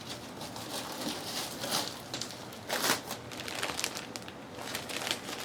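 Sheets of craft paper rustling and crinkling as they are handled and sorted through, with a few sharper crinkles.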